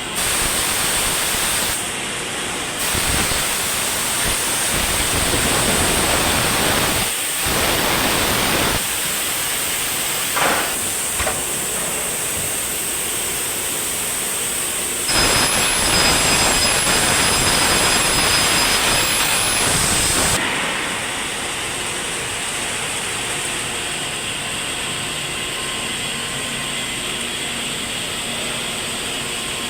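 Aluminium extrusion press and factory machinery running: a loud, steady rushing hiss with mechanical noise. It grows louder for about five seconds past the middle, then drops to a steadier, lower hiss.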